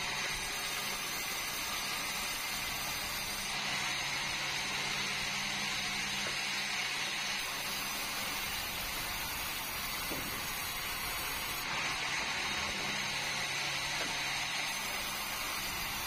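Sawmill headsaw running steadily, a continuous machine hum under a hiss that swells and eases every few seconds.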